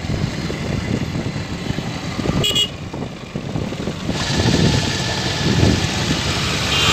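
Wind and road noise from riding a two-wheeler, with a short vehicle horn toot about two and a half seconds in. The rushing noise grows louder about four seconds in.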